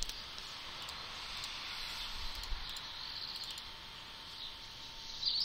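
Steady low microphone hiss with a few faint chirps, likely birds outside, and a soft computer mouse click as a dialog is opened.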